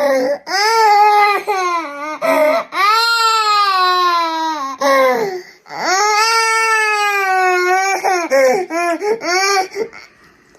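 A hungry toddler crying loudly, in long drawn-out wails that break into short, choppy sobs near the end.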